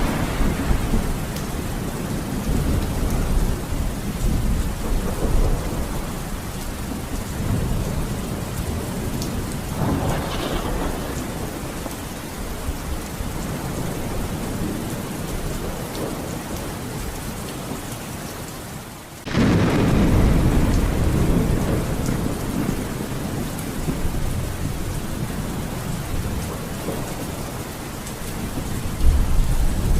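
Thunderstorm: steady heavy rain with low rolling rumbles of thunder. Just past two-thirds of the way in, the sound dips briefly and then returns suddenly louder.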